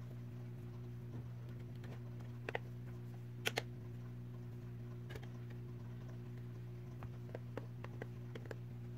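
Scattered light plastic clicks from a Huawei P Smart's back cover being pressed along its edges and clipped shut. The loudest is a quick double click about three and a half seconds in, with a run of lighter ticks near the end, over a steady low hum.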